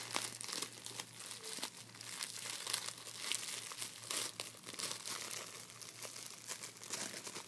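Thin plastic wrapping crinkling and crackling as it is handled and pulled off a foam squishy toy, in a quick irregular run of small crackles.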